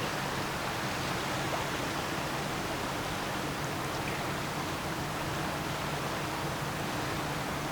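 Passing lake freighter: a steady rushing wash of noise with a low, even engine drone underneath.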